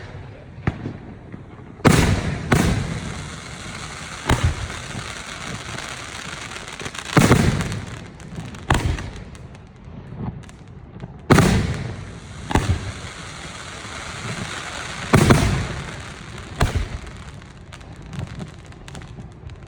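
Professional aerial firework shells bursting: about nine loud booms a second or two apart, some coming in pairs, with a steady crackle between them.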